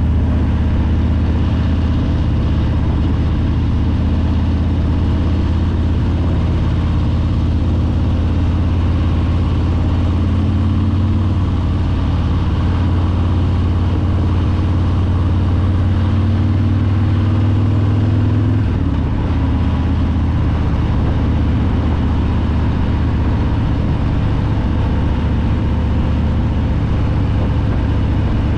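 Harley-Davidson Breakout's Milwaukee-Eight 114 V-twin engine running steadily while riding, heard from the rider's seat. The engine note shifts about two-thirds of the way through.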